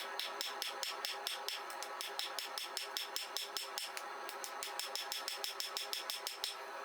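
Hand hammer striking a hot 15n20 and 1095 damascus steel billet on an anvil in a quick, even rhythm of about five blows a second, with a short break about four seconds in and another near the end, over a steady hum.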